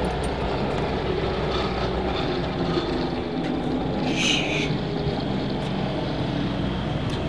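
A vehicle engine running steadily, with a short hushing 'shh' about four seconds in.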